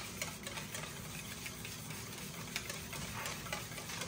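Wire whisk stirring thick, creamy ranch dressing in a stainless steel bowl, its wires clicking lightly and quickly against the metal.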